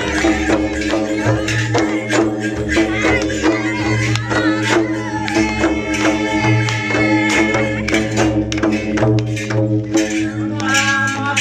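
Karma folk dance music: a quick, steady drum beat with jingling percussion over sustained instruments, and a voice singing.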